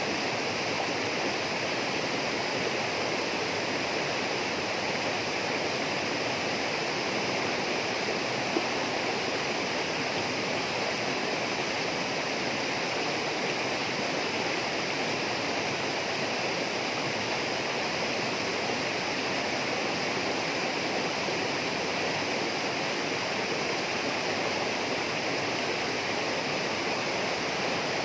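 Steady rush of running water in the rainforest, with one brief click about eight seconds in.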